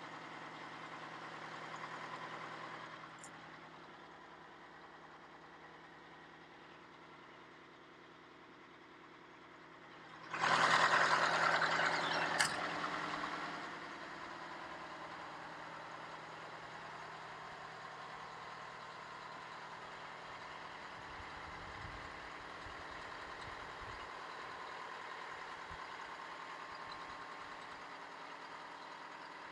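Detroit Diesel 8V92 turbocharged two-stroke V8 diesel of an Oshkosh M1070 HET tractor idling steadily. About ten seconds in, a loud rushing noise lasts about three seconds, with a sharp click near its end.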